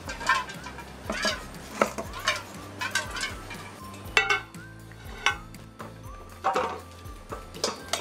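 A large knife chopping through a dressed guinea fowl in a stainless steel bowl: irregular sharp chops, roughly one every half second to a second, the blade knocking through bone and clinking against the metal bowl.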